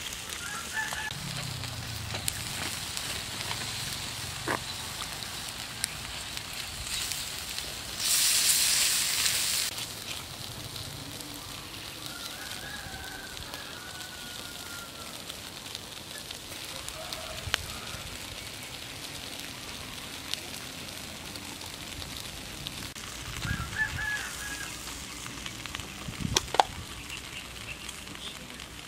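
Pork sizzling and crackling on a wire grill over charcoal as it is basted, with a loud hiss lasting about a second and a half about eight seconds in. Chickens cluck and a rooster crows in the background.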